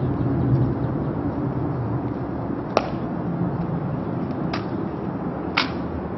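Three sharp slaps of a sentinel's gloved hands striking his M14 rifle as he moves it from one shoulder to the other during the rifle drill, about 2.8, 4.5 and 5.6 seconds in, over a steady background of rain noise.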